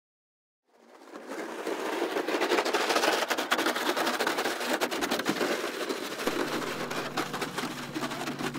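A dense crackling noise full of rapid clicks fades in after a moment of silence. About six seconds in, steady low sustained music tones enter beneath it.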